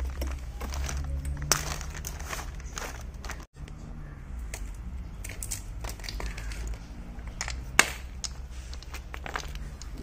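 Handling noises: plastic packaging crinkling and scattered clicks of plastic and brass fittings as a pressure-washer spray gun and lance are handled, with one sharp click near the end. A low steady hum runs underneath, and the sound drops out for a moment about a third of the way in.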